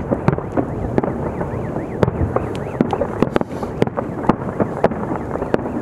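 Fireworks display: aerial shells bursting in a rapid, irregular series of bangs, several a second, over a continuous dense rumble.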